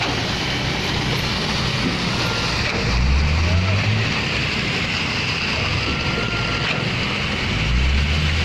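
Engine of concrete-placing machinery running steadily on site. Its low drone swells about three seconds in and again near the end, as the machine comes under load.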